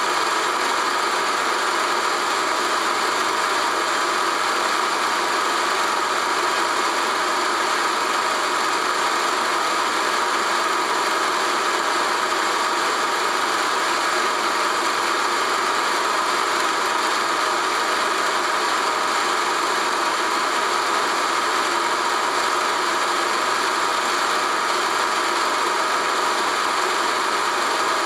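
Film projector running, a steady mechanical whir with a light rattle that does not change from shot to shot.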